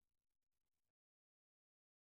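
Near silence: a very faint trace of room tone fades out and cuts to total silence about a second in.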